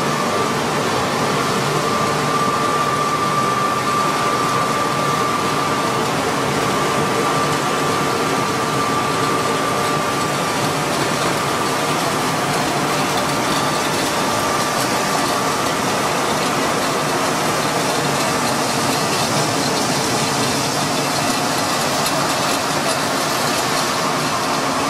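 Wheat flour milling plant running: the roller mills with their belt drives and motors, and the pneumatic conveying with its cyclones, make a loud, steady machine noise with a constant high whine.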